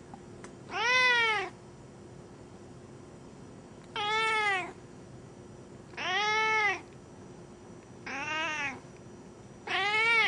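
Domestic cat meowing five times, each call rising then falling in pitch and a little under a second long, spaced about two seconds apart.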